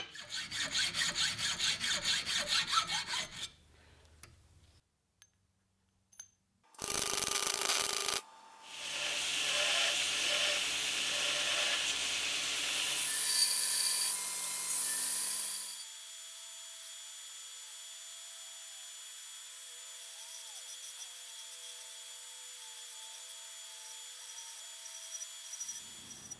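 A drill press bores into the end of a steel bar for about three and a half seconds with a pulsing, grinding noise. After a pause and a short loud burst, a belt grinder runs against the steel stamp for about seven seconds. Then a quieter steady hum with faint wavering tones takes over.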